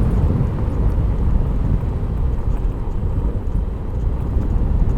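Steady low rumble of wind and road noise on a helmet camera while riding a Yamaha Mio i 125 scooter downhill, with no distinct engine note standing out.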